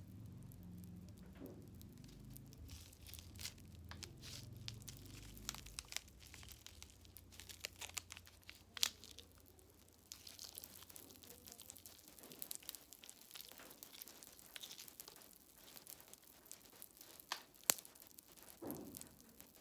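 Plastic packaging crinkling and tearing close to the microphone, with scattered sharp clicks and two louder snaps, as packets of jelly and popping candy are handled and opened.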